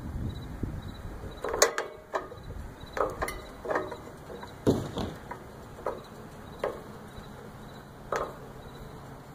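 Tilt-over metal antenna mast being raised: irregular sharp clicks and knocks carried up the tube, about ten in all, coming further apart toward the end.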